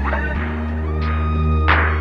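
Background music: sustained bass and synth notes with occasional percussive hits.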